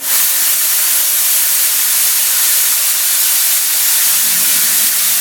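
Flood coolant spraying inside a Haas CNC mill during a diamond end-mill cut in AlSiC, a loud steady hiss that switches on abruptly, with a faint machine hum underneath.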